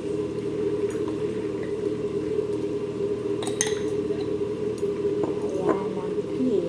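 A spoon scooping mayonnaise out of a jar into mashed potatoes in a glass dish, with a few light clinks and soft squelches, over a steady droning hum.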